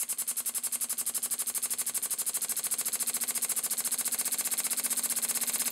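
Elmer Verburg model beam engine running on compressed air: a rapid, even chuff of exhaust air with each stroke over a hiss. The beat quickens and grows louder as the air pressure is turned up.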